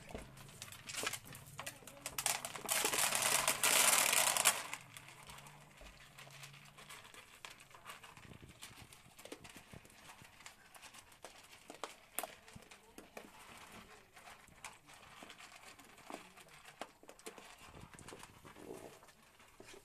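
Several goats eating dry corn kernels from a shallow tub: scattered small clicks and knocks from chewing and from muzzles and hooves against the tub. A loud rushing noise runs from about two seconds in to about four and a half seconds in.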